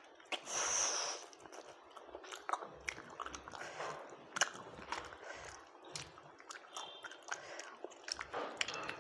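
Close-up eating sounds: a person chewing and biting food, with many small crunches and wet clicks, and a louder rush of noise lasting under a second near the start.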